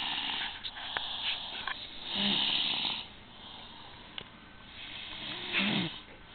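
A sleeper snoring out loud: two breathy snores about three seconds apart, each with a low buzzing tone under the hiss. A few faint clicks fall between them.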